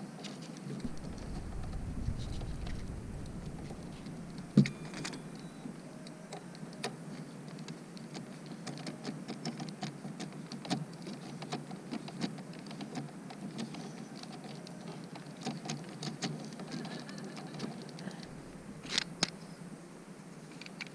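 Small clicks and light scrapes of hand work on a fridge's 12-volt wiring terminal block: wires being seated and a screwdriver turning the terminal screws. A sharper click comes about four and a half seconds in, and there are a few more near the end.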